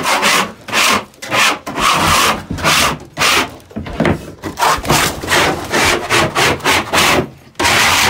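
Hand scraper scraping pigeon droppings off a loft floor in repeated strokes, about two a second, coming quicker in the second half.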